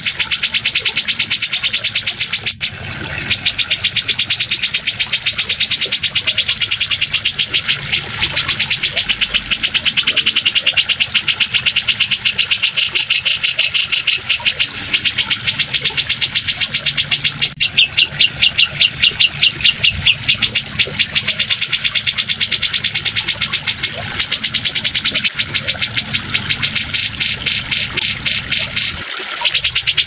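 Grey-cheeked bulbul (cucak jenggot) chattering in fast, rapid-fire trills almost without pause, with two brief breaks. Beneath it runs a steady water sound. The track is a bird-training recording meant to be played to caged songbirds.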